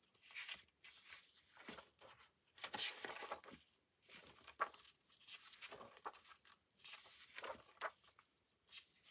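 Pages of a spiral-bound paper diary being turned one after another: a soft papery swish with each turn, several in a row with short quiet gaps between.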